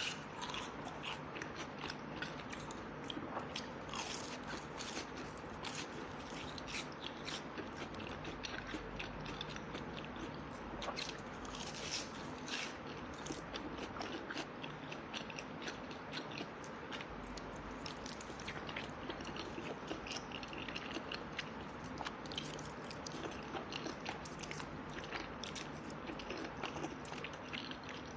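A person biting and chewing food close to the microphone: a steady run of crisp, crunchy bites and chews.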